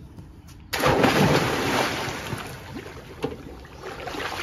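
A person jumping into a swimming pool: one big splash about a second in, then water sloshing and lapping as it settles.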